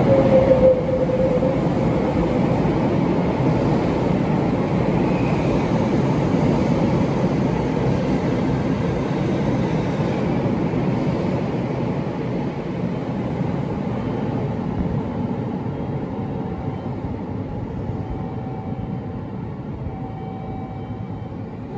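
Sotetsu eight-car electric train passing through an underground station without stopping, with a brief clear tone in the first second. Then a steady rumble of wheels on rail fades slowly as the train runs off into the tunnel.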